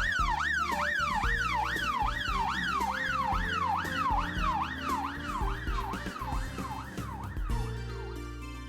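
Electronic emergency-vehicle siren going in quick falling sweeps, about three a second, over background music. It fades out near the end.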